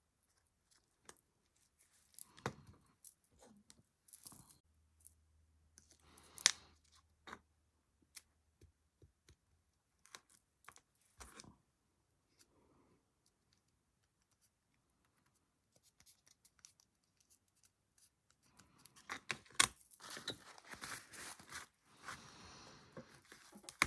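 Scattered light clicks and taps of small craft pieces being handled and glued on a tabletop, with denser rustling and crinkling for the last few seconds.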